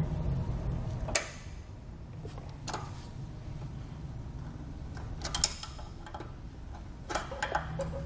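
A steel snap ring and snap ring pliers clicking as the ring is worked onto the trailer jack's mounting ring. There are a handful of sharp metallic clicks spread across the few seconds, several of them close together near the end, over a low steady hum.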